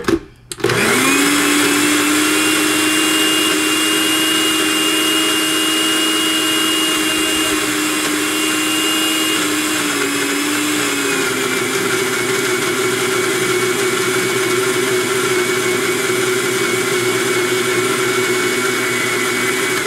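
Personal bullet-style blender running steadily as it purées chimichurri sauce. Its motor spins up about a second in, and about halfway through its pitch drops a little as the thick herb-and-oil mixture finally catches the blades.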